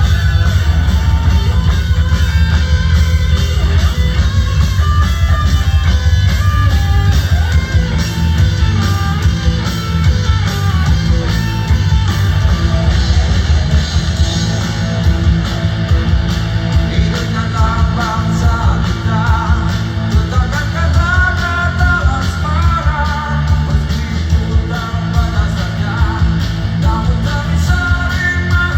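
Live rock band playing loud through the stage PA: electric guitar over heavy bass and drums, with a singer's voice coming in more strongly in the latter part.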